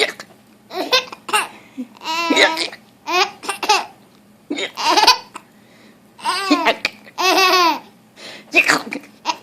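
A woman hiccuping, with a baby laughing in short, high-pitched bursts between the hiccups.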